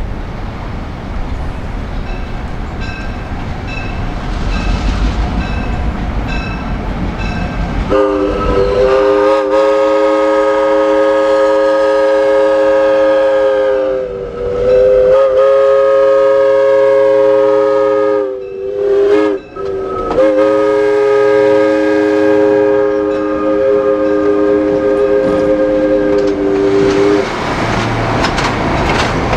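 Diesel locomotive air horn sounding the grade-crossing signal, two long blasts, a short one and a final long one, over the rumble and wheel clatter of the moving train.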